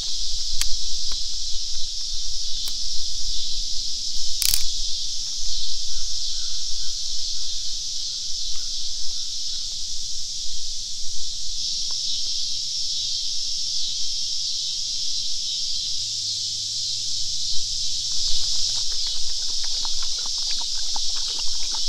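A steady, high-pitched chorus of evening insects, with a few sharp clicks and one louder snap about four and a half seconds in. Near the end a dog laps water from a collapsible bowl in quick, rhythmic laps.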